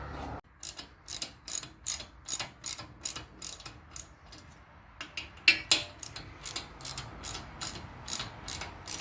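Hand ratchet clicking in short, even strokes, about three clicks a second, as Allen head bolts are run in to fasten the hydraulic pump. The clicking comes in two runs with a brief pause about four seconds in.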